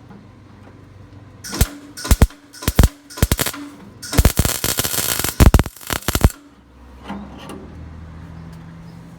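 Welding arc crackling in a string of short bursts, then one longer run of about two seconds: short stitch welds on a sheet-metal patch, started on the new metal and dragged onto the thin old metal. A low hum follows once the arc stops.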